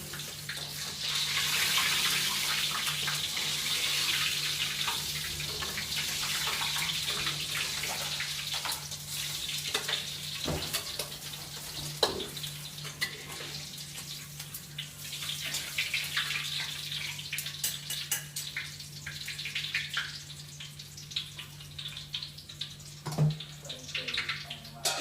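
Kitchen tap running into a sink, loudest during the first several seconds, with scattered clinks and knocks of dishes and utensils and a steady low hum underneath.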